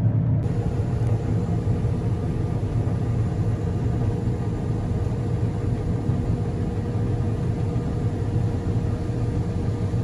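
Combine running steadily at work, heard from inside the cab, while its unloading auger pours soybeans into a gravity wagon: a constant low mechanical drone with a steady hum.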